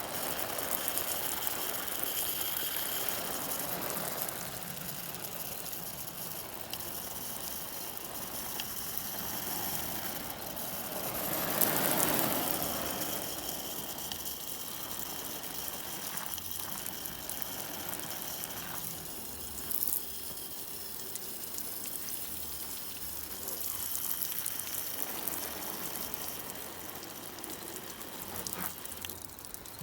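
Water spraying steadily onto a Jeep's fabric door uppers to test their seals for leaks, briefly louder about twelve seconds in.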